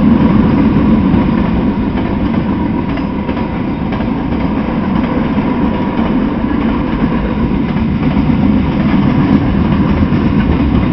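Freight cars rolling past on the rails: a steady, heavy rumble of steel wheels on track, with a few faint clicks from the wheels.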